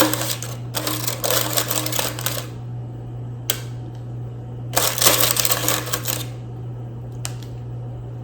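Kitchen handling noise as food is moved onto a plate: several bursts of rapid clattering and rustling, with two sharp single clicks between them, over a steady low hum.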